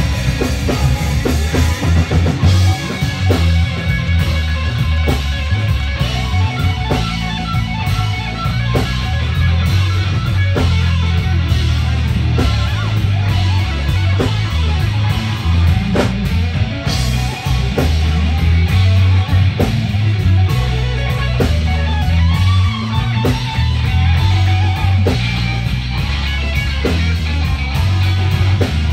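Live blues band playing a slow blues instrumental passage: electric guitar over bass guitar and drums, with the drum strikes coming about once a second.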